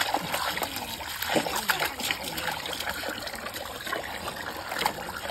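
A thin stream of water pouring from a pipe onto a child and into a plastic bucket of water, trickling and splashing steadily.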